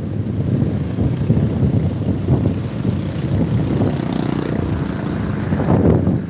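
Motorcycle engine running at riding speed, with wind buffeting the microphone in a steady rumble.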